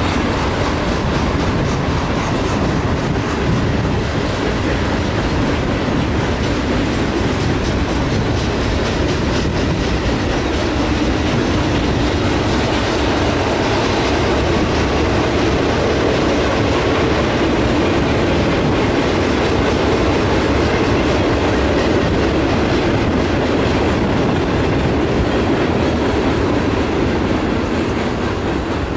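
Freight train's cars rolling past steadily: a continuous rumble of steel wheels on rail, with rapid clicking from the wheels.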